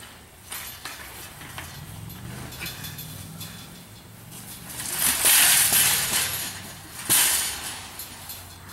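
A metal wire shopping cart rattling loudly as it is shoved, then a sharp clattering crash about seven seconds in.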